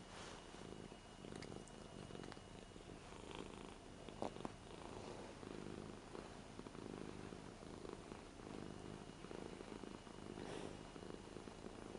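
Ragdoll cat purring steadily, a soft rhythmic rumble that swells and eases, while being stroked under the chin and over the head. A couple of soft clicks about four seconds in.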